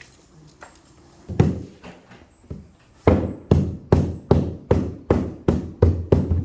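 Hammer blows on carpet gripper rod: a single strike, then a steady run of about nine hard blows, roughly two and a half a second, nailing the gripper down at the foot of the stairs.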